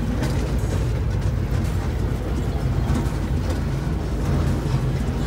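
Amusement-park train ride running, heard from aboard: a steady low rumble from the moving cars with faint clicks.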